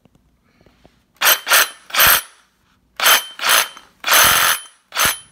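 DeWalt DCS380B 20 V cordless reciprocating saw with a 9-inch pruning blade, run in seven short trigger pulls, each a quarter to three quarters of a second long, with a high motor whine in each.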